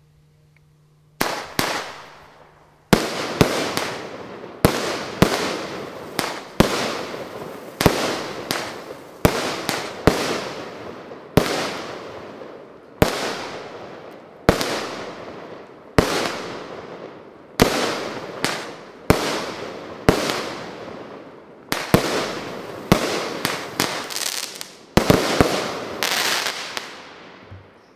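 Sunflower Blink consumer fireworks cake firing shot after shot, each shot a sharp bang that trails off over a second or so, at a steady pace of roughly one shot every second or so. Near the end comes a quicker cluster of bangs, the cake's three-shot finale.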